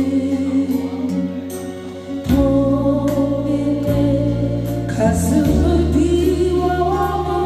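Korean ballad sung solo with a wavering vibrato on long held notes, over a slow instrumental accompaniment whose bass and chords change about every second and a half.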